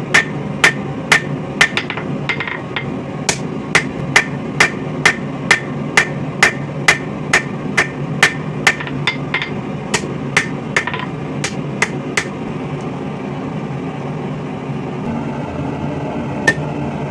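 Hand hammer striking coil-spring steel on an anvil to forge a knife blade, about two ringing blows a second with a short pause. The blows stop about three-quarters of the way in, with one more strike near the end, over a steady low hum.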